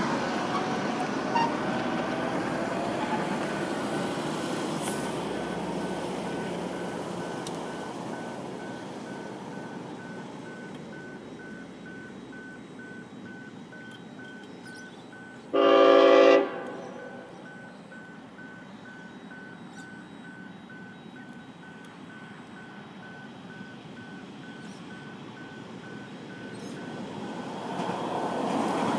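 Tilt Train sounding its horn once, about a second long, just past halfway, over the level crossing's electronic warning bell pinging in an even rhythm. A rushing noise fades over the first several seconds, and the approaching train's rumble swells near the end.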